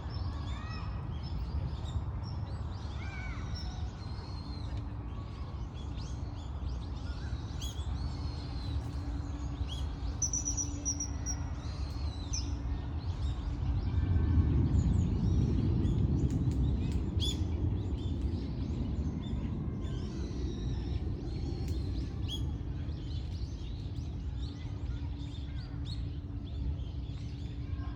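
Common kingfisher calling: scattered short, high, shrill whistles, repeated throughout. Under them a steady low rumble of background noise, which grows louder for a few seconds around the middle.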